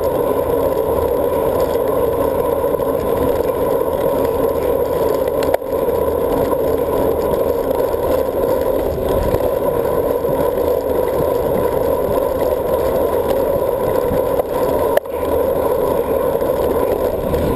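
Steady rush of wind and tyre noise from a road bike ridden fast on a concrete bridge path, heard through a handlebar-mounted GoPro in its housing. It is broken by a brief knock twice, about five and a half seconds in and again near fifteen seconds.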